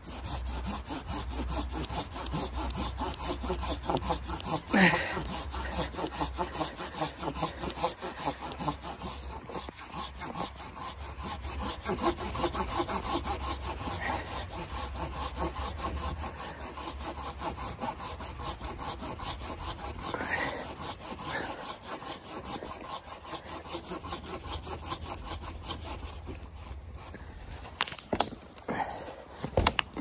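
Hand saw with fast, even back-and-forth strokes cutting through a dead conifer log, with a few louder knocks along the way. The sawing stops a few seconds before the end, followed by a couple of sharp knocks.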